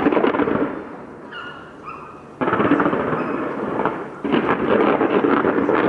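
Aerial fireworks going off in three bursts, each a sudden bang followed by a second or two of dense crackling.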